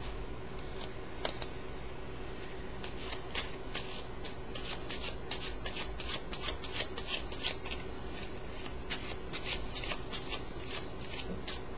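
A deck of playing cards being cut and shuffled in the hands: quick, crisp snaps and riffles, a few at first and coming thick from about three seconds in until near the end. A faint steady hum runs underneath.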